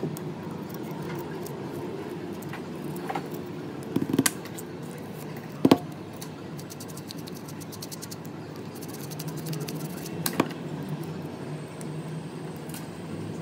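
Thin metal pry tool scraping and picking at an iPhone 11's bare frame to clear leftover back-glass bits: light scratching with a few sharp clicks and taps, the loudest about six seconds in, over a steady low hum.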